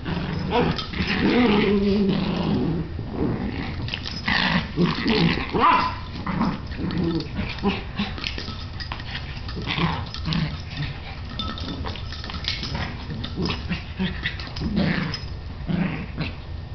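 Two small dogs, a Yorkshire terrier and a Bichon Frise, playing rough: short growls mixed with scuffling and scrabbling, busiest in the first half and quieter toward the end.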